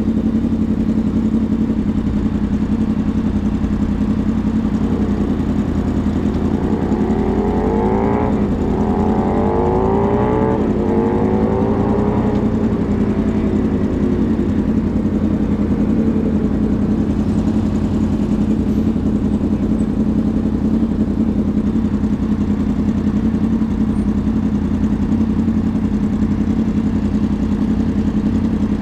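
Wind and road rumble on the microphone while riding in city traffic, with a steady hum underneath. About eight seconds in, a vehicle's pitch climbs as it accelerates, then falls away over the next few seconds.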